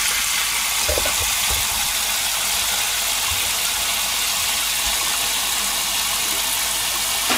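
Kitchen tap running steadily into a stainless steel bowl packed with dishes in a stainless steel sink, a constant splashing hiss. There are a couple of light knocks of dishes shifting about a second in.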